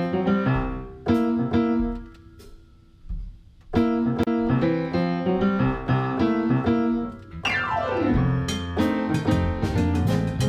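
A keyboard with a piano sound plays blues chords in short stop-time phrases, broken by a pause, then a downward glissando about seven and a half seconds in. A drum kit joins with sharp cymbal and drum hits for the last couple of seconds.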